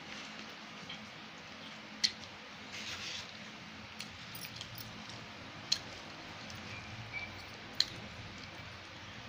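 Fingers working rice and chicken curry on a steel plate: soft squishing of food and three sharp metallic clinks against the plate, the last the loudest, over a steady background hiss.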